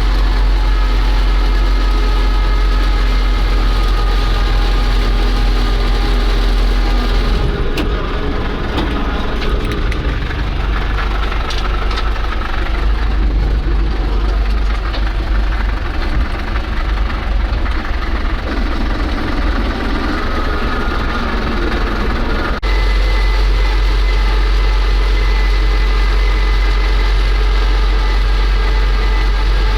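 A vehicle engine running, a steady low hum with a droning tone. The sound changes abruptly about seven seconds in and changes back about 23 seconds in.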